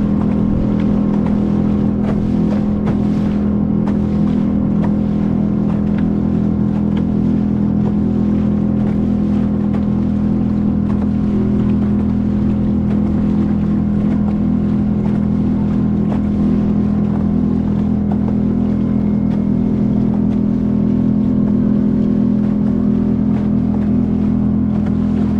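A motor running at one steady speed, a loud unbroken drone with a constant pitch.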